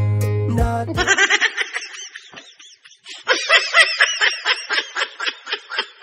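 Laughing in quick short bursts, in two bouts, the second starting about three seconds in and trailing off, after the last chord of the music fades out about a second in.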